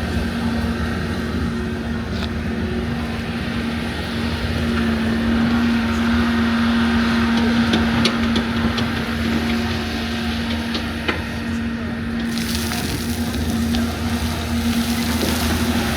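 LiuGong 942F excavator's diesel engine running steadily at working speed, with a few brief knocks.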